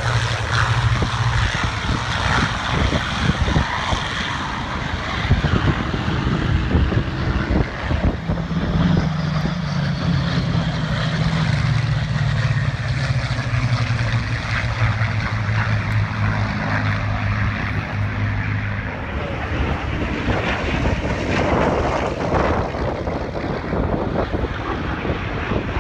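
Piston engines of vintage propeller-driven fighter aircraft running and flying past, a steady low drone over a broad rush of propeller noise. From about eight seconds in, one engine's drone slowly drops in pitch, then fades out a little before twenty seconds.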